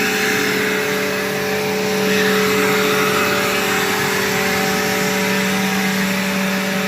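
Bissell PowerForce vacuum cleaner running: a steady motor hum and whine over rushing air.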